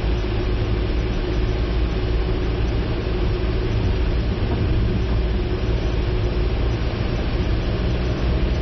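A car driving, with a steady low rumble from the road and engine under a constant hiss, during a typhoon. A faint steady hum sits over the rumble and fades out about two-thirds of the way through.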